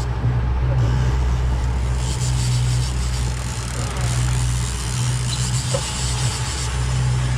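Boat engine running steadily with a low hum, under a constant hiss of wind and water.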